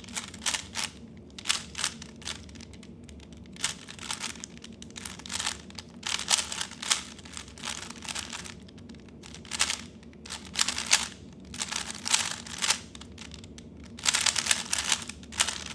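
A 3x3 speed cube being turned fast during a timed solve: quick bursts of plastic clicks and clacks as the layers turn, with short pauses between bursts and a dense run of turns near the end.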